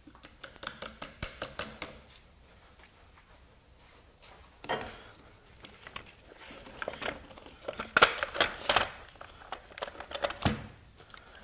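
Scattered metal clinks and knocks as a steel floor jack and its parts are handled and shifted about on cardboard, with a light crinkle of the cardboard. The loudest clatter comes about eight seconds in, and a single knock follows a couple of seconds later.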